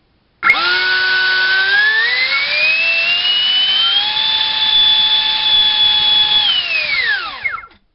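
Four-blade 70 mm electric ducted fan driven by a GoolRC 2968 3800 kV inrunner brushless motor on a 4-cell LiPo. It starts abruptly about half a second in, and its whine rises in pitch over a few seconds to top speed. It holds there steady for about two seconds, then winds down and stops near the end.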